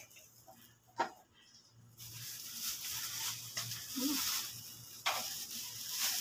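A plastic bag rustling and crinkling as it is handled, with a sharp knock about a second in and another about five seconds in.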